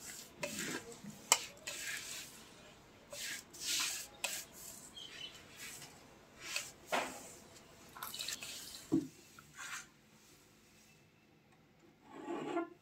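Coarsely ground spice being swept by hand off a stone grinding slab (sil-batta) into a steel bowl: short, irregular scrapes and rustles, with one sharp click about a second in.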